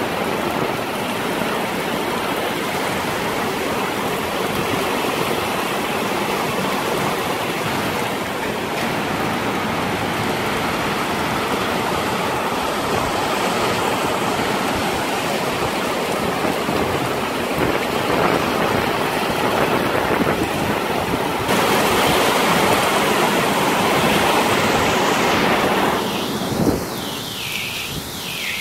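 Heavy storm rain pouring down, a loud, steady rushing hiss. It grows louder about three-quarters of the way in, then eases and turns duller near the end, with a short knock just before.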